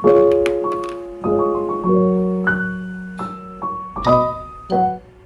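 Piano music: a light tune of chords and single notes, each one struck and then fading.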